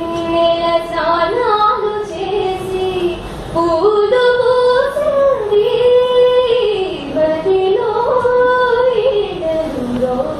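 A girl singing solo into a microphone, in phrases of long held notes that slide smoothly between pitches, with a short breath about three and a half seconds in.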